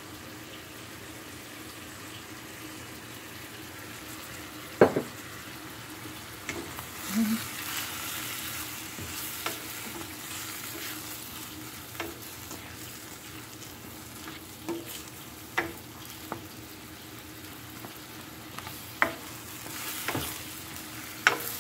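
Chayote, carrots and eggplant sizzling steadily in a stainless steel skillet as they are stir-fried. The stirring utensil knocks and scrapes against the pan every two or three seconds, loudest about five seconds in.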